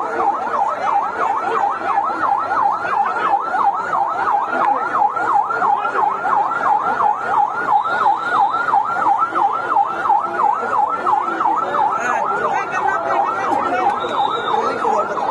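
Police vehicle siren on a fast yelp, its pitch sweeping quickly up and down about three to four times a second without a break.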